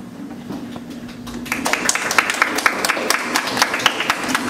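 Several people clapping their hands in applause, starting about a second and a half in as a quick, uneven run of claps.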